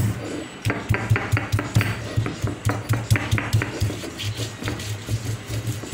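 Stone roller of an ammikkal (granite grinding slab) knocking and grinding against the slab in quick, repeated strokes, several thuds a second, as ginger and garlic are crushed into a wet green chutney paste.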